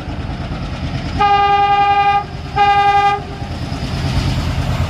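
Indian Railways ALCO diesel locomotive sounding its air horn in two steady blasts, a longer one about a second in and a shorter one right after. The engine's low rumble runs underneath as it approaches.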